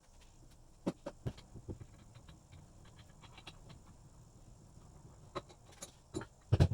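Scattered light clicks and taps from handling a broken metal bench vise, with a couple of heavier knocks near the end.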